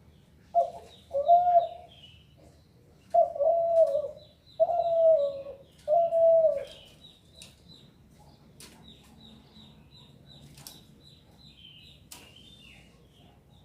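Spotted dove (derkuku) cooing: two short notes, then three longer coos that fall in pitch at their ends, over the first seven seconds or so. Small birds chirp high and thin throughout.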